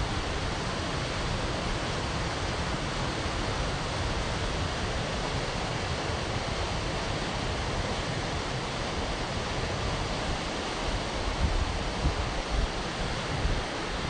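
A mountain stream rushing over rocks and pouring into a pool, a steady rush of white water. From about ten seconds in, wind buffets the microphone in uneven low thumps.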